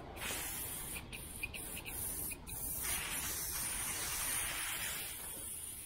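Aerosol spray can of adhesive promoter spraying a hiss, first in several short bursts, then in one longer spray of about three seconds that fades near the end.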